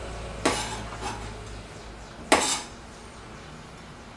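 Two sharp knocks, about two seconds apart, of a kitchen knife cutting through button mushrooms onto a cutting board.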